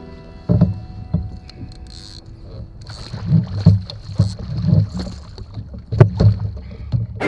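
Small waves slapping against the hull of a Hobie Compass sit-on-top kayak, with irregular low thumps and splashes.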